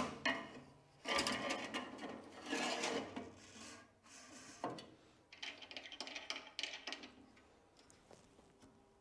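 Aluminium fence of a planer thicknesser being set onto the machine's metal tables and slid into place. There are a couple of knocks at the start, a long metal scrape, a single clunk about halfway through, then more scraping and rattling.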